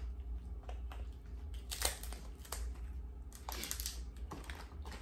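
King crab leg shells being cracked and pulled apart by hand: a scatter of short, irregular cracks and clicks.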